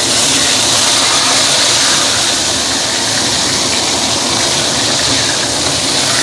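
Hot oil sizzling steadily and loudly as a whole Chinese pomfret shallow-fries in a stainless steel wok after being turned over.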